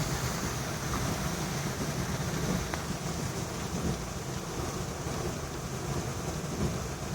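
Heavy storm surf breaking and hurricane-force wind rumbling on the microphone: a steady low rumble with a hiss over it.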